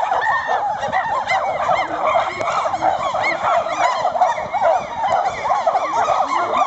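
A group of chimpanzees calling together: many short rising-and-falling calls overlapping in a dense, steady chorus.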